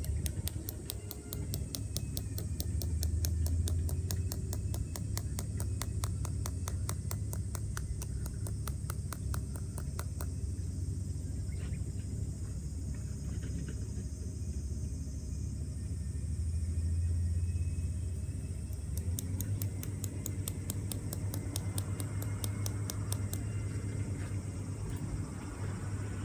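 Wind rumbling and gusting on the microphone, swelling twice. Over it, a fast, even ticking comes in for the first ten seconds or so, stops, and returns in the last third.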